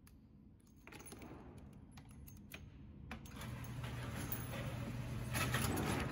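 Light metallic clicks and clinks as the revolver is handled. About halfway through, a steady low motor hum starts as the range's target carrier runs the paper target in.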